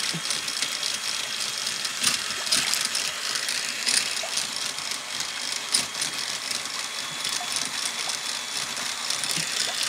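Motorcycle chain running fast over a wheel spun by an electric drill, rattling steadily as it carries water up out of a bucket and flings it off in spray, with the drill's motor whining thinly at a steady pitch.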